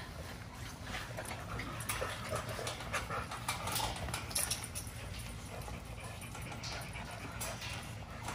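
XL pit bulls whining at a wire kennel gate, with scattered clicks and rattles of the wire panels as they jump up against it.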